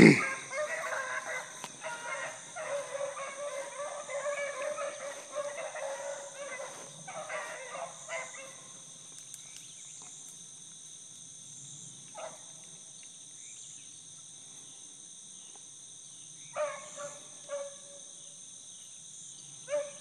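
Pack of beagles baying as they run a rabbit track, their voices thick for the first several seconds, then thinning to a lone call and starting up again near the end. A sharp knock comes right at the start.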